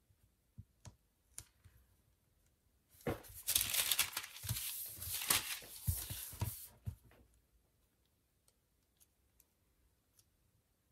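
A sheet of thin paper rustling and crinkling loudly for nearly four seconds as it is handled and smoothed flat by hand, after a few light ticks.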